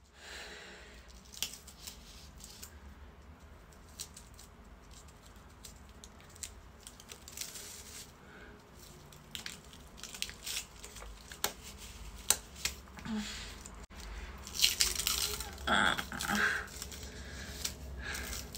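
Special-effects makeup prosthetic being peeled off the skin: soft tearing and crinkling with scattered small clicks, busier and louder near the end.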